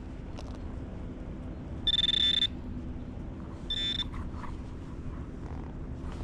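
Handheld metal-detecting pinpointer's buzzer beeping twice, a longer beep about two seconds in and a shorter one about four seconds in: the alert that it senses metal at its tip.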